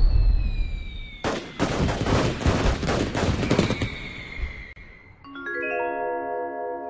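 Cartoon explosion sound effects: a deep blast rumble fading away under a falling whistle, then a rapid string of bangs for about two and a half seconds. About five seconds in, a run of ringing mallet-percussion music notes comes in.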